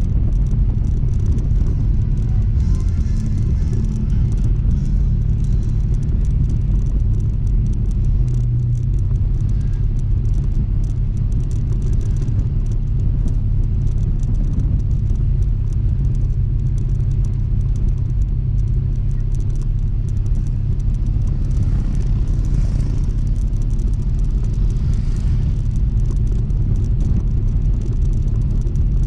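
Honda ADV160 scooter's single-cylinder engine running steadily while riding, heard as an even low rumble.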